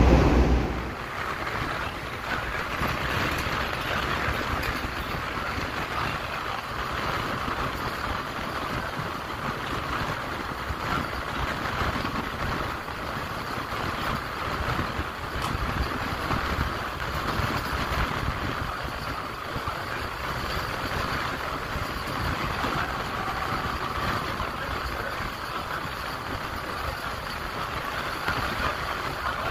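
Steady rushing noise of a Vande Bharat Express electric train set running at speed: wheels on the rails and air streaming past, heard alongside the coaches.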